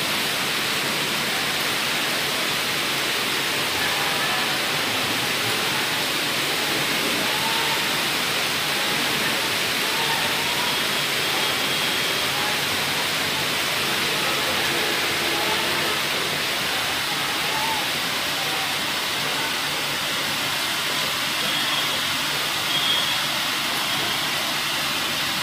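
Heavy rain pouring down onto flooded ground, a steady, dense rush of water with no let-up, with faint voices in the background.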